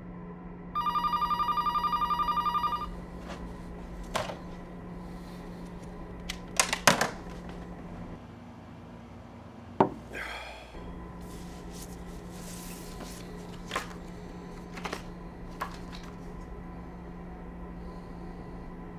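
An electronic ringer trilling once for about two seconds, a rapid pulsing tone, starting about a second in and then stopping. Several sharp knocks and clinks follow, the loudest about seven seconds in, over a low steady hum.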